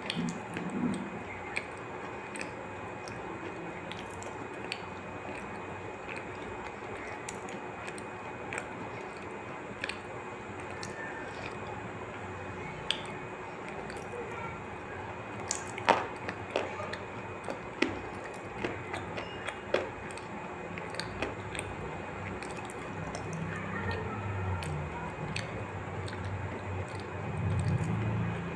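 Person chewing a liquid-nitrogen 'smoke' snack close to the microphone: scattered sharp crunches and mouth clicks, thickest in the middle, over a steady hiss.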